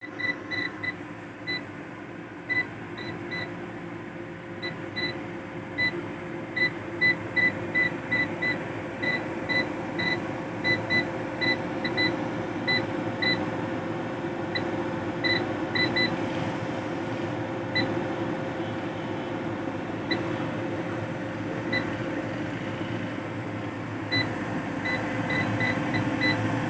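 UPS alarm buzzer giving short, high beeps at uneven intervals, sometimes in quick pairs or runs, with gaps of up to about two seconds, over a steady hum.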